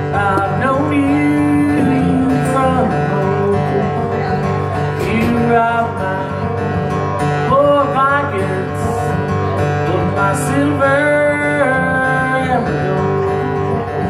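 Acoustic guitar played live in an old-time folk song, picked and strummed.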